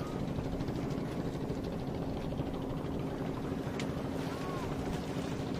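An engine running steadily at an even pitch, a low constant hum, with a faint short chirp about four seconds in.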